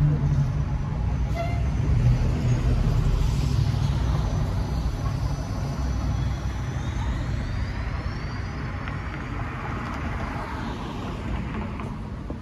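City bus driving past close by. Its engine rumble and road noise are loudest at first and fade as it pulls away, with a thin high whine rising in pitch about halfway through.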